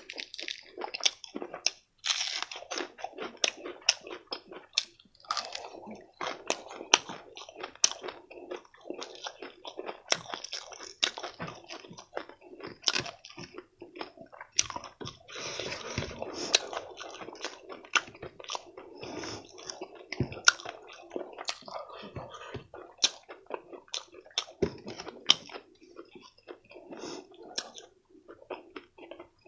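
Close-miked chewing and crunching of food in the mouth, with many sharp clicks and smacks.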